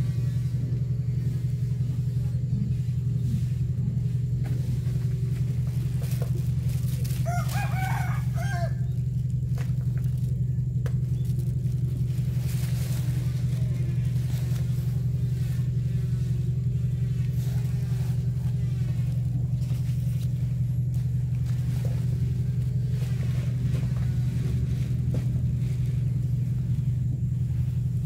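A steady low engine drone, with a rooster crowing once about seven seconds in.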